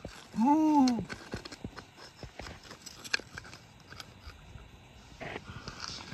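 A short vocal sound that rises and then falls in pitch about half a second in. It is followed by scattered light clicks and scrapes of a pry bar and loose rock being worked in a narrow rock crack.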